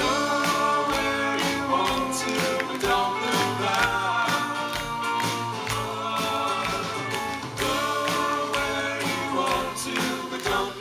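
A band playing a song live, with sung voices over the instruments and a steady percussive beat.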